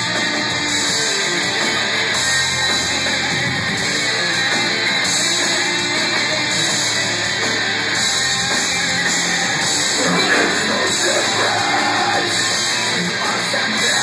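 Metalcore band playing live: distorted electric guitars over a drum kit, a dense, steady wall of heavy music.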